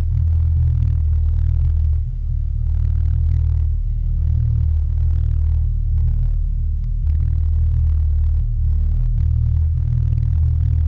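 Steady low underwater rumble picked up by a GoPro in its housing as it is towed on a downrigger cannonball behind a trolling boat.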